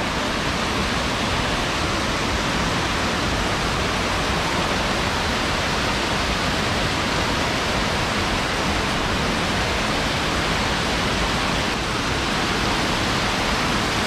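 Waterfall and rapids rushing steadily over rocks, the stream running high after heavy rain.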